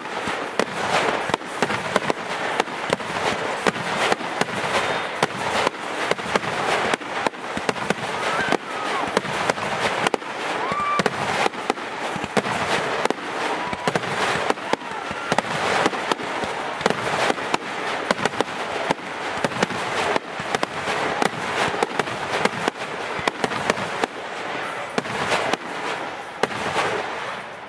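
Fireworks display: a dense, unbroken run of bangs and crackling, many reports a second, easing off near the end.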